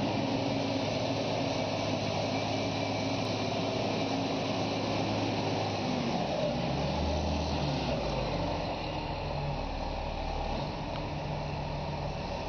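A large engine on heavy equipment running steadily; its note shifts and settles lower between about six and eight seconds in.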